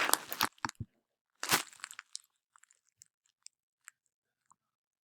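Crackling rustle close to the microphone that stops about half a second in, followed by a few sharp clicks and scattered faint ticks.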